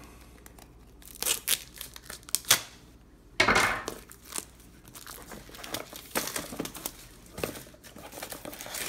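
Quadcopter packaging being opened by hand: an irregular series of crinkles and rips, the loudest about three and a half seconds in.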